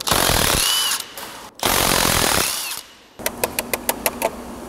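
Cordless Milwaukee impact wrench hammering the flexplate bolts off the back of a BMW N62 V8, in two bursts of about a second each, each with a rising whine. These are followed by a quick run of about eight sharp clicks.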